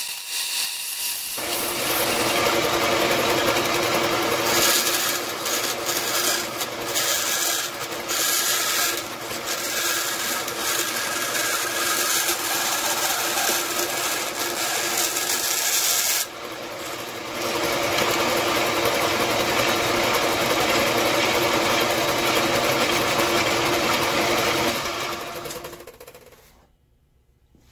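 Vertical band saw cutting out a sheet-metal blank, the blade rasping steadily through the metal, with a brief lull partway through. Near the end the sound dies away and stops.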